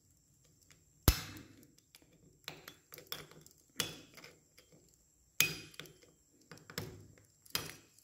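Sharp metal clicks and taps as a small screwdriver levers the coil springs of a motorcycle engine's balancer gear into their seats: four louder clicks a second or two apart, with lighter ticks between.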